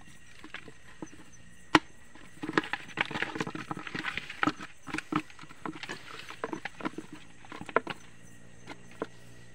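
A run of irregular crackles and clicks close to the microphone, with one sharp click shortly before the main cluster, which is densest in the middle few seconds and then thins out.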